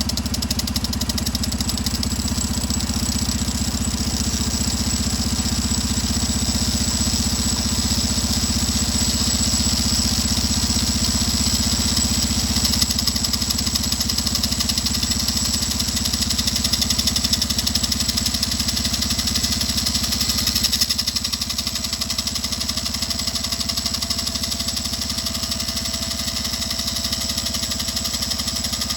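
Honda TLR200 single-cylinder four-stroke engine running steadily in gear, turning the welded-on 13-tooth sprocket. A high, hissing grind of a tool cutting into the spinning sprocket sits over the engine and fades out about two-thirds of the way through.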